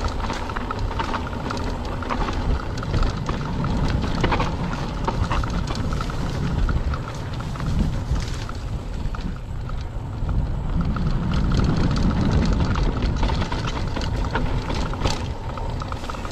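Mountain bike riding a dry dirt singletrack: tyres crunching on the dirt and the bike rattling over bumps, with wind rumbling on the action camera's microphone and overgrown grass brushing past.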